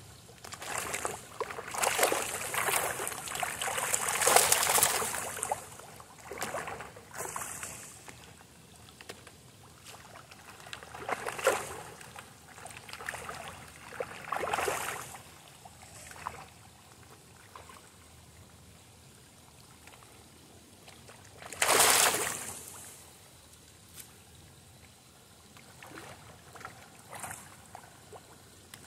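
Koi splashing at the pond surface as they feed on floating pellets, in irregular bursts of splashing and sloshing. The first few seconds are busy with splashing, with shorter splashes later and one loud splash a little over two thirds of the way through.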